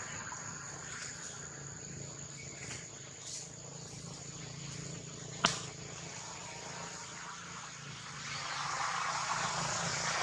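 Outdoor insect drone: a steady high-pitched insect tone over a low hum, with a single sharp click about five and a half seconds in and a broad rushing noise growing louder over the last two seconds.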